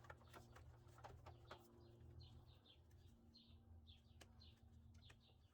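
Near silence: faint bird chirps in short repeated phrases over a low steady hum, with a few soft clicks in the first two seconds.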